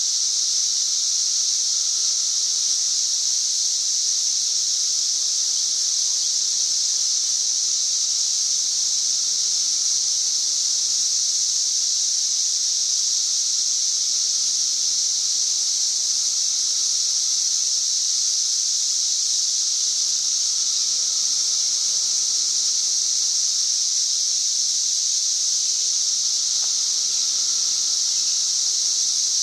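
Chorus of cicadas singing, a steady, unbroken, high-pitched drone that is really loud, at around 90 decibels.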